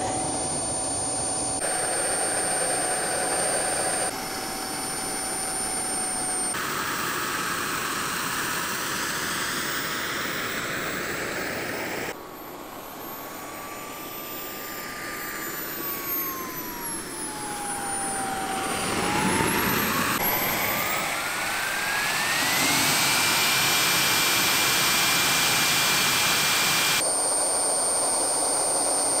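King Tech K-80 model jet turbine running with a high whistling whine over a rush of exhaust noise, heard in several short cuts. Partway through, the whine sinks in pitch, then climbs again and holds steady and loud.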